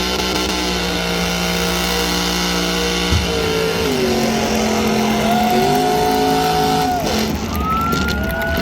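Car engine held at high revs in a burnout. The pitch holds steady for about three seconds, then drops and climbs back up, holds, and drops and rises again near the end.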